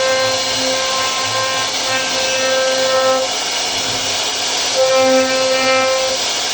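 CNC router cutting wood: a steady hiss of the spindle and bit working the wood, with a pitched whine that comes and goes every second or two as the load changes.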